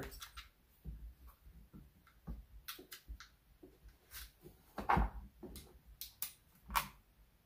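Plastic housing of a Stihl MS210 chainsaw being handled as its rear handle assembly is worked loose: scattered light clicks and knocks, with a louder knock about five seconds in.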